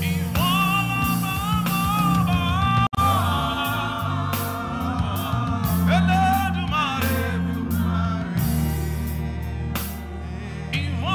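Gospel worship music: singing voices holding long, wavering notes over bass and a steady beat, with a brief dropout in the sound about three seconds in.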